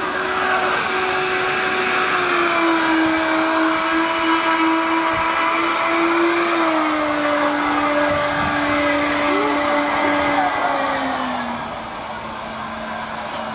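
Electric motors of a homemade RC jet boat whining as it runs on the water, over a steady hiss. The pitch steps down several times, and the sound gets quieter about eleven seconds in.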